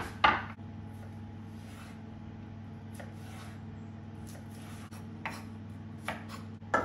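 A wooden chopping board is put down with a clatter, then a kitchen knife slices carrots into batons on it, with a few knocks of the blade on the wood that grow louder near the end. A steady low hum runs underneath.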